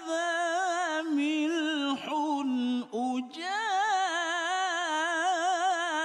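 A man's solo voice in melodic Quran recitation (tilawah in the mujawwad style), holding long notes with fast ornamental wavering in pitch. The phrase breaks briefly about two seconds in and again near three seconds, then another long ornamented phrase follows, dipping low at the end.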